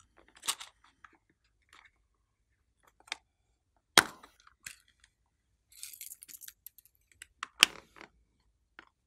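Heart-shaped plastic tubs clicking and knocking against each other as they are handled, with two sharp clacks, about four and seven and a half seconds in, and light crackling between them.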